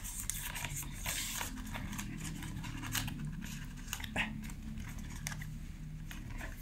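Paper-and-card packaging of an Apple phone case being handled and pulled open: rustling and scraping with scattered light clicks, and a short tearing hiss about a second in.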